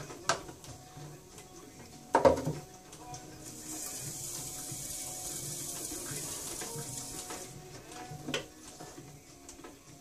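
Wet hands and water working soft clay on a spinning potter's wheel: a soft, steady watery hiss through the middle, with a short knock about two seconds in and another near the end.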